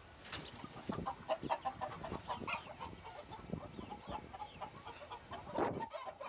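Chickens clucking in a coop: a steady scatter of short clucks, with a louder burst of sound about five and a half seconds in.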